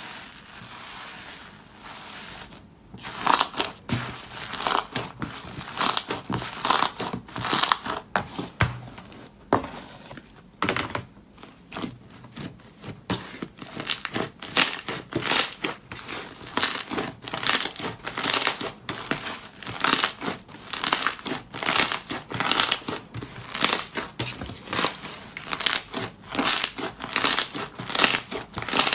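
Slime being squeezed and pressed, making a soft rustle at first, then from about three seconds in a long run of sharp crackling pops and crinkles, one or two a second.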